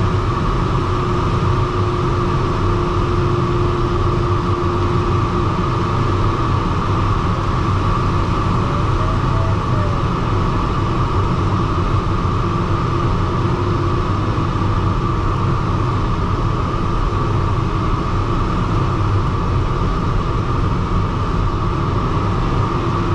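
Steady rush of air around the cockpit and canopy of a DG-303 sailplane in gliding flight, with a low rumble underneath. A faint low steady tone comes and goes, fading out about five seconds in and returning near the end.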